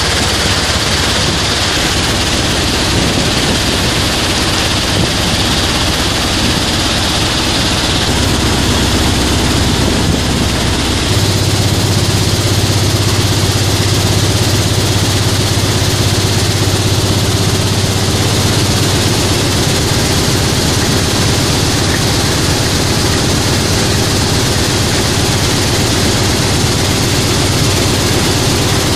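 Sand washing plant running: the bucket-wheel sand washer and conveyor belt machinery make a loud, steady mechanical din with a continuous low hum and a rush of washing water. The low hum grows stronger and slightly louder about eleven seconds in.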